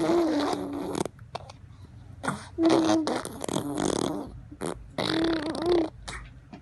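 A baby making a car-engine noise with its voice, in three bursts of about a second each.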